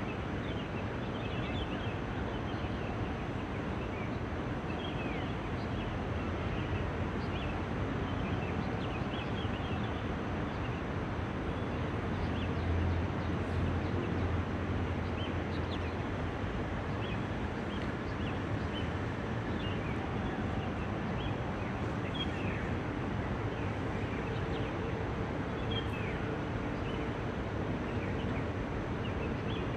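Steady outdoor city ambience: a constant low traffic rumble with many small birds chirping over it, the rumble swelling a little about halfway through.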